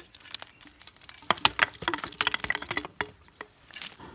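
A rapid, irregular run of small clicks and knocks, densest in the middle, from hands handling and fitting plumbing parts.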